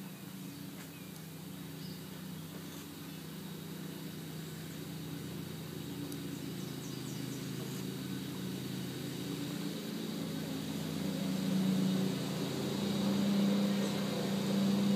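A low, steady mechanical hum with a few steady tones, growing louder over the last few seconds.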